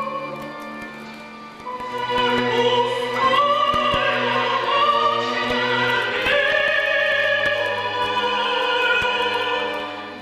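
Mezzo-soprano singing a slow melody with vibrato over held low string chords of a chamber orchestra. The music swells about two seconds in.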